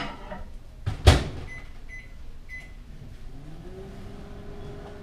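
Microwave oven: the door shuts with a knock, the keypad gives three short beeps, and the oven starts running with a hum that rises briefly and then holds steady.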